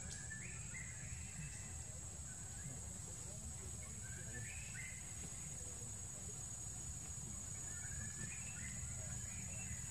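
Forest ambience: a steady high-pitched insect drone, with a bird calling in short phrases of stepped notes three times, over a low rumble.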